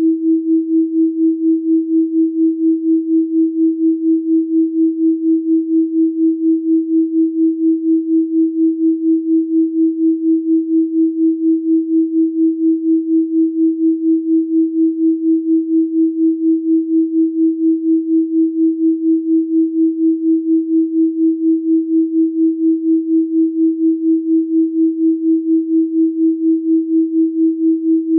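Continuous electronic pure tone at 324 Hz, steady in pitch, swelling and fading evenly about three times a second.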